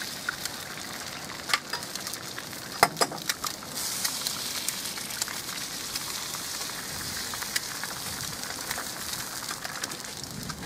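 Eggs frying on a hot Weber cast-iron griddle: a steady hissing sizzle, with a few sharp cracks in the first three seconds as eggshells are broken. The sizzle swells about four seconds in.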